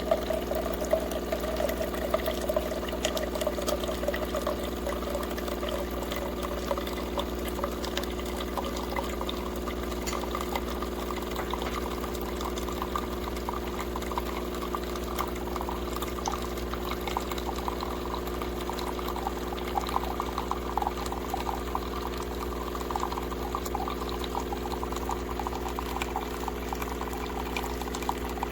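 De'Longhi TrueBrew coffee maker brewing: hot coffee pours steadily into the carafe over a steady machine hum, the splashing growing stronger in the second half.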